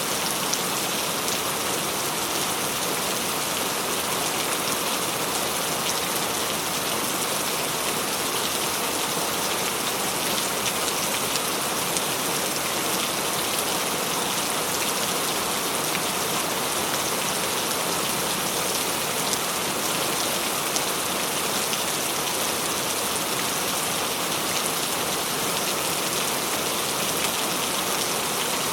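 Steady rain falling: an even hiss of dense raindrop patter that keeps the same level throughout.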